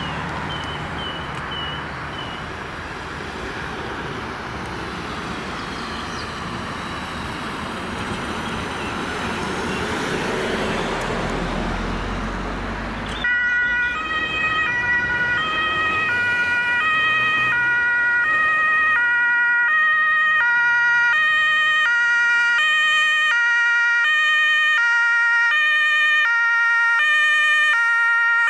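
Road traffic going by, with a low rumble building as a vehicle passes. About halfway through, a German two-tone emergency siren (Martinshorn) on a Red Cross Mercedes-Benz Vito starts sounding, alternating evenly between a high and a low note, each held about half a second.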